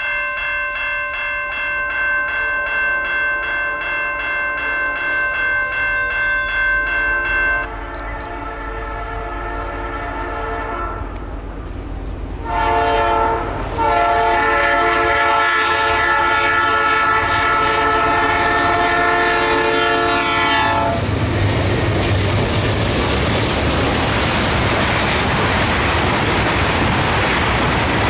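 A GE C44-9W diesel locomotive sounding its multi-chime air horn in long blasts as a freight train approaches, the chord breaking off briefly about twelve seconds in. After about twenty seconds the horn stops and the locomotive and the wheels of empty ethanol tank cars rumble and clatter steadily past on the rails.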